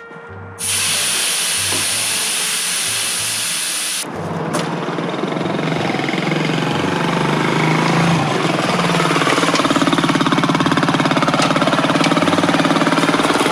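Small motorcycle engine running under way, with a steady rushing hiss like wind over the first few seconds. After an abrupt change the engine's even firing note comes through clearly, rises a little in pitch and settles.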